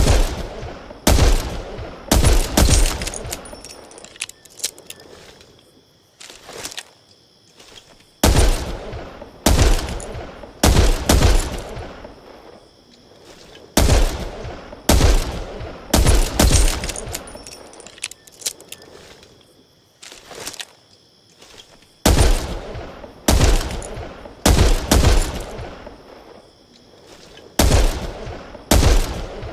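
.357 Magnum revolver shots, fired in quick groups of two to four about a second apart, each shot trailing off in a long echo, with pauses of a few seconds between groups.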